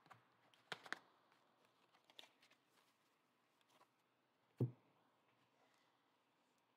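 Faint clicks and taps of a stack of trading cards being handled and squared, with one soft thump a little past halfway as a stack is set down on the table mat; otherwise near silence.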